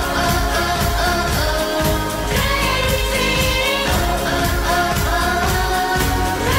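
Children singing a song together over a musical backing track with a steady beat.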